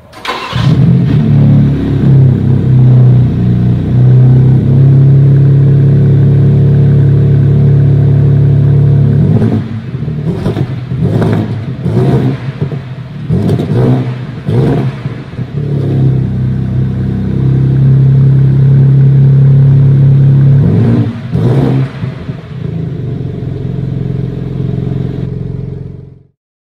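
BMW M4's 3.0-litre twin-turbo inline-six heard at the quad exhausts. It comes in suddenly and holds a steady idle, then is blipped in a rapid series of short revs about ten seconds in and twice more later on. It settles back to idle each time before cutting off abruptly near the end.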